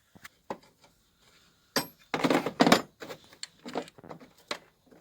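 Metal clicks and a short clattering rattle of hand tools, loudest about two seconds in, as a bolt on the scooter engine's valve cover is undone to free the earth wire.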